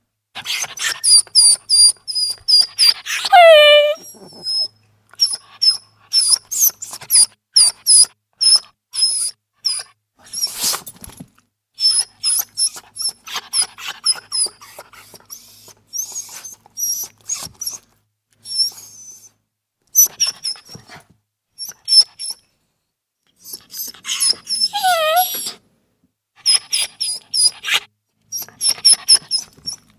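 Small dog whimpering: rapid runs of short, very high-pitched squeaks broken by pauses, with two longer whines that fall steeply in pitch, one about three seconds in and one near the end.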